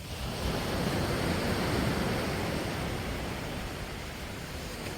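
Sea surf washing onto a sandy beach: a steady rush of noise that swells about two seconds in and then eases.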